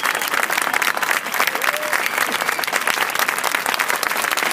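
Large audience clapping steadily, a dense even patter of many hands, with a few voices calling out.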